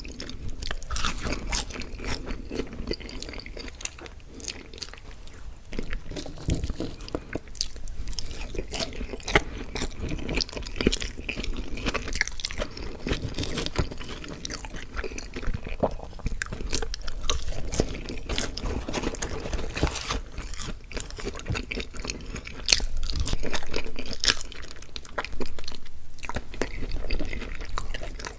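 A person chewing and biting food close to the microphone: a continuous run of short crunches and wet mouth clicks, a little louder in a stretch near the end.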